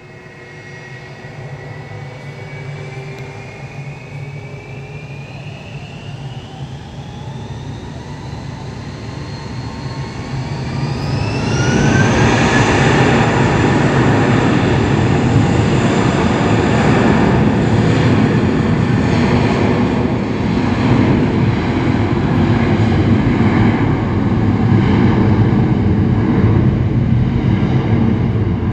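Airbus A319 jet engines spooling up for takeoff: a whine climbs steadily in pitch for about twelve seconds. Then the engines break into a loud, steady roar at takeoff thrust as the airliner starts its takeoff roll.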